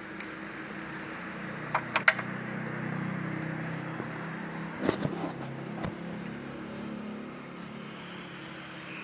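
Steady low mechanical hum, with a few sharp metal clicks about two seconds in and a small cluster of knocks near the middle, from hand tools and parts handled at an engine's crankshaft flange.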